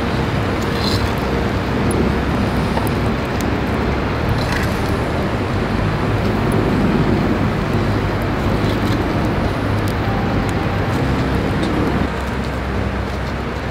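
Wood fire burning in a pizza oven: a steady rushing roar with scattered light crackles, dropping a little in level near the end.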